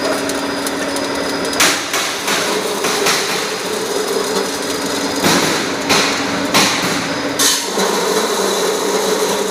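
Soybean peeling and hull-separating machine running with a steady mechanical drone, broken by about six sharp knocks at irregular intervals.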